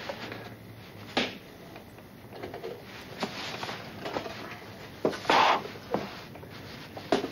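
Small clicks and knocks from handling a wind-up alarm clock and a hurricane lantern, with a short louder rush of noise about five seconds in as the lantern is put out.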